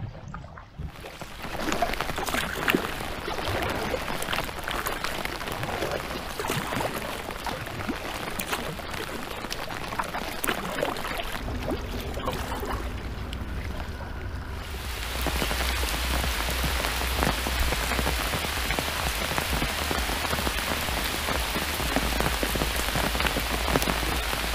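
Rain shower falling around a kayak on the river: a dense hiss of many small drop impacts, getting heavier about two-thirds of the way through, with a low rumble underneath from about halfway.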